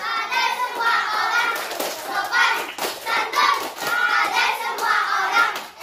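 A class of young children singing a yel-yel group chant together in unison, clapping their hands along with it.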